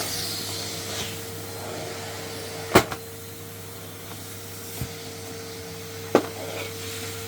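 Henry canister vacuum cleaner running with a steady motor whine, with two sharp knocks, one about three seconds in and one near the end, and a smaller one between.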